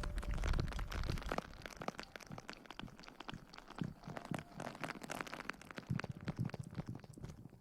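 Close-miked ASMR crackling and rustling: a dense, irregular run of soft crackles and clicks, louder in the first second or so and softer after.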